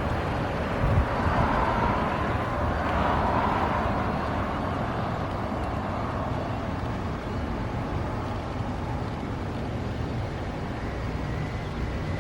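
Road traffic: a vehicle passing by early on, swelling and fading, over steady traffic noise.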